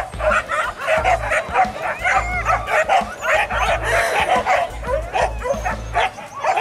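A pack of hunting dogs yelping and barking at once, many overlapping high calls that bend up and down in pitch without a break.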